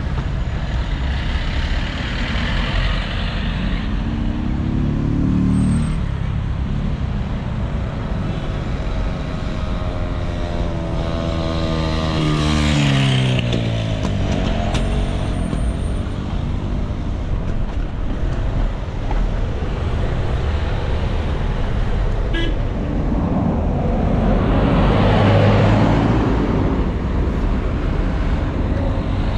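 Street traffic with a steady low rumble. A vehicle passes about a third of the way in, its engine pitch falling as it goes by, and another passes near the end.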